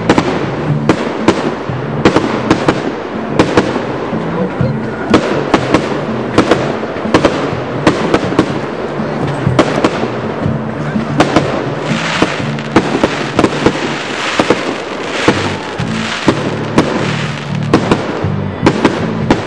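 Fireworks display: aerial bursts going off one after another, sharp bangs about two a second, with a denser hissing crackle in the middle stretch.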